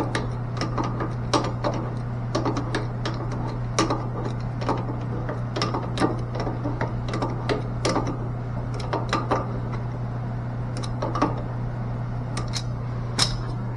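Irregular clicks and taps of hand tools and valve parts being worked on a mixing valve, over a steady low hum.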